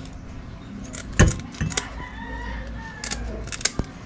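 A handful of sharp, irregular clinks and knocks, the loudest a little over a second in.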